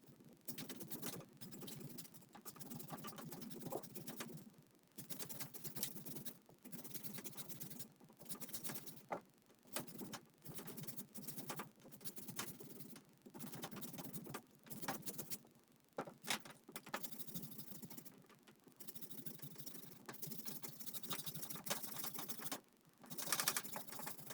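A carrot being grated by hand on a metal grater: runs of quick rasping strokes, broken by short pauses.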